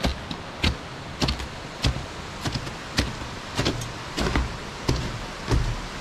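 Footsteps of a hiker wearing crampons on snow-covered wooden steps: crunching steps, about two a second.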